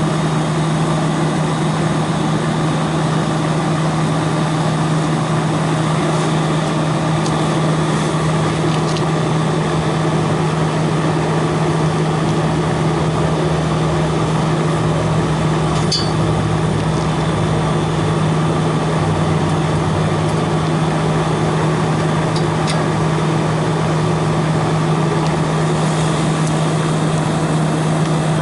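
Refrigerant recovery machine running with a loud, steady hum while it pulls R-409A out of the refrigeration system, with a few faint ticks.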